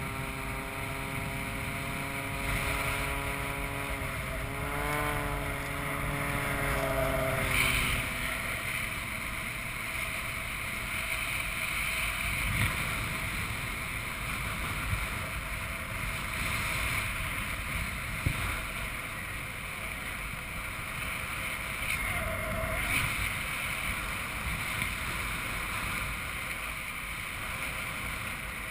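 A propeller airplane's engine drones over steady wind rush on the camera microphone, its pitch wavering as it passes, then fading out after about eight seconds. After that only the wind rushes past the microphone.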